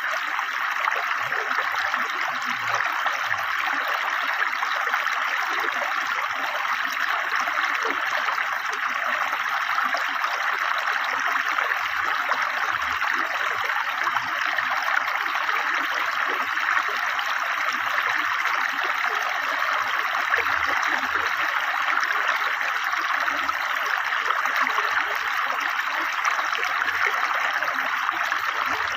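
River water flowing swiftly, a steady, even babbling rush.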